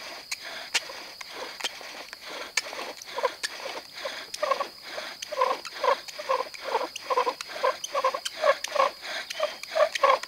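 Wooden bow drill being worked: the spindle squeaks and grinds in the fireboard with each stroke of the bow, with dry clicks at first, then a fast regular squeak, about three a second, from a few seconds in.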